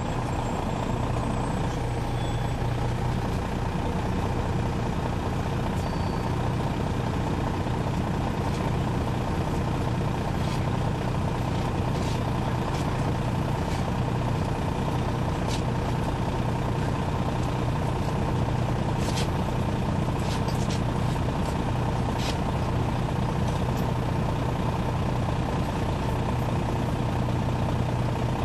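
Detroit Diesel Series 60 engine of a 2001 MCI D4000 coach, heard from on board the bus, running steadily at an even level. A few light clicks or rattles come through between about ten and twenty-two seconds in.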